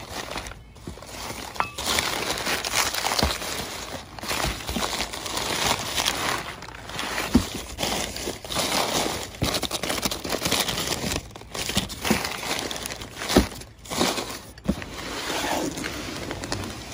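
Crumpled newspaper packing rustling and crinkling as hands dig through it in a cardboard box, with a few sharp knocks.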